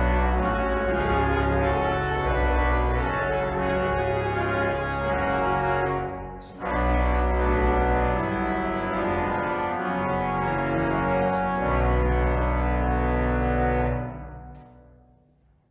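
Church organ playing sustained chords over a deep pedal bass, with a short break about six and a half seconds in. The final chord is released about fourteen seconds in and dies away in the room: the close of the hymn before the sermon.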